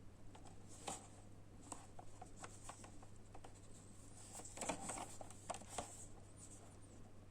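Hands handling and opening a phone charger's retail packaging: light scrapes, rustles and small taps, busiest a little past the middle, over a faint steady low hum.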